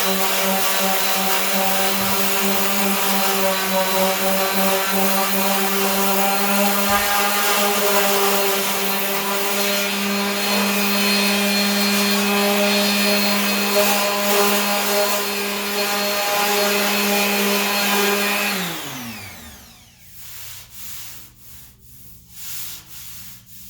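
Power sander running steadily against cured body filler on a steel truck fender, a hum with a gritty rubbing hiss. Near the end it is switched off and its pitch falls as it winds down over about a second, followed by a few light knocks.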